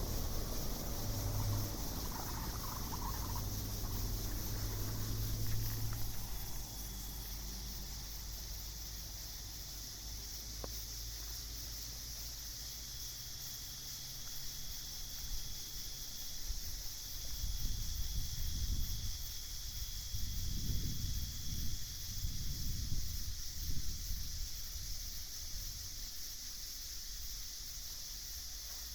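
Nighttime insect chorus, a steady high-pitched trill, with low rumbling swells beneath it in the second half.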